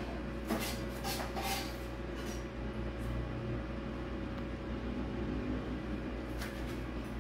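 Steady low hum with a few light clicks and knocks in the first couple of seconds.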